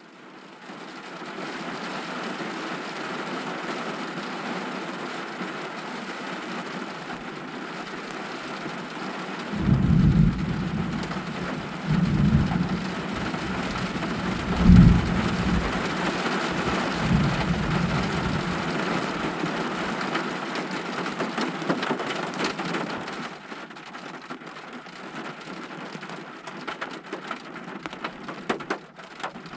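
Heavy rain pouring steadily, with thunder rumbling several times in a row from about ten seconds in, the loudest roll about halfway through. Near the end the rain eases to scattered drops.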